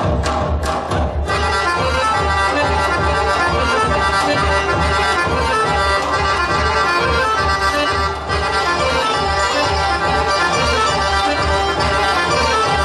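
Traditional Thracian folk dance music. A few sharp percussive strokes, then about a second in a sustained melody instrument comes in over a steady low beat.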